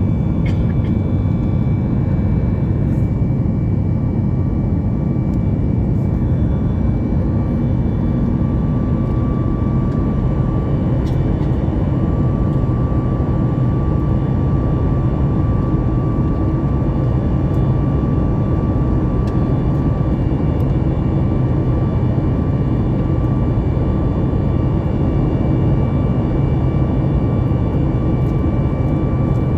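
Cabin noise inside a Boeing 737 MAX 9 in flight: the CFM LEAP-1B turbofans and the airflow make a steady, loud low rumble, with a few faint steady whining tones over it.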